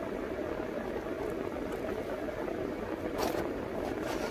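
Steady noise of a running car heard inside the cabin, with two brief sharp clicks or rustles near the end.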